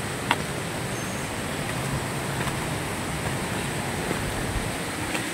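Steady rushing of a river flowing over rapids, an even wash of water noise, with one sharp click shortly after the start.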